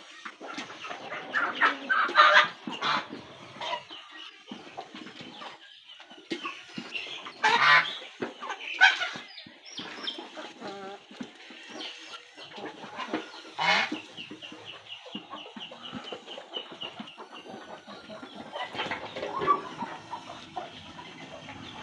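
Chickens clucking among a mixed flock of geese and ducks crowding a feed bowl, with a few louder calls about 2, 8 and 14 seconds in.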